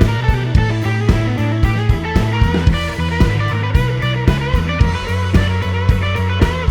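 Background music: guitar-led instrumental rock with a steady drum beat.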